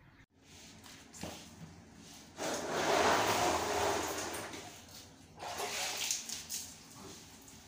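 Water splashing and sloshing in a plastic basin for about three seconds, then a few shorter splashes.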